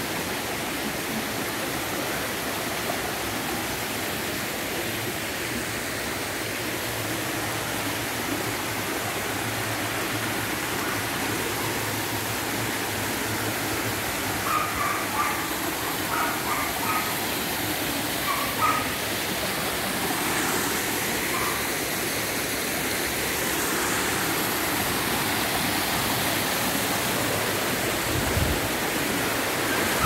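Mountain stream and waterfall rushing steadily over rocks. The rush grows a little louder in the second half as the falls come closer. A few brief higher sounds stand out around the middle.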